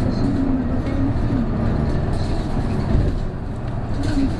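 Isuzu Erga (PJ-KV234L1) diesel city bus running, heard from inside the passenger cabin as a steady low engine and drivetrain rumble, with a single low thump about three seconds in.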